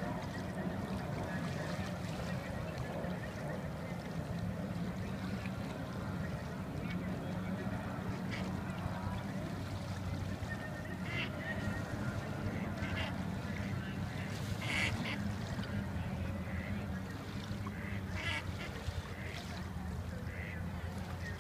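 Ducks giving a few short, scattered quacks, the loudest about two-thirds of the way through, over a steady low drone.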